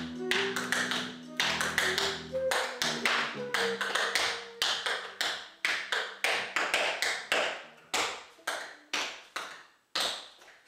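Tap shoes striking a portable tap board in a steady rhythm of sharp taps, over backing music that dies out about four seconds in. The taps then go on alone, a couple each second, and stop just before the end.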